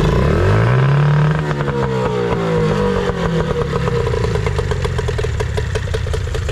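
Nissan 18 hp two-stroke two-cylinder outboard motor blipped: the engine note rises for about a second, drops back over the next two, then settles into a steady idle. The idle is running right after the idle speed screw and idle air mixture screw were reset.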